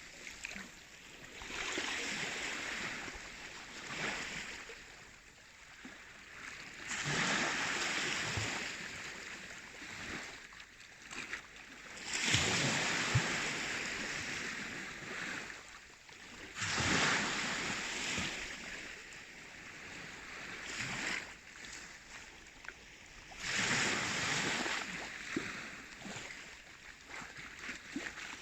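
Baltic Sea waves breaking and washing in, a rushing surge that swells and fades every three to five seconds.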